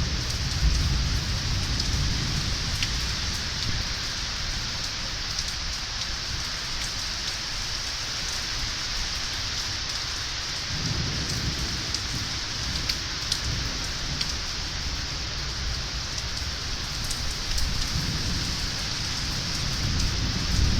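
Steady rain falling during a thunderstorm, with low rumbling thunder at the start and again from about halfway through.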